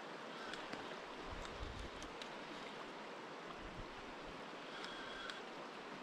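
Shallow, fast river running over stones, a steady, faint rush of water.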